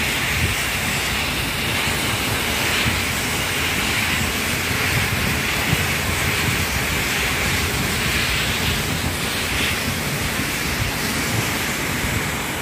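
Steady rushing hiss of grain pouring from a port terminal's loading spout into the river, with an uneven low rumble underneath.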